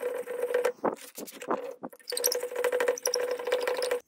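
Small handheld power tool whirring steadily against the steel ax head. It breaks off for just over a second with a few scrapes, starts again, and cuts off abruptly near the end.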